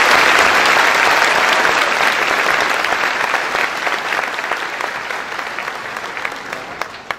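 Audience applauding, loudest at first and slowly dying away toward the end.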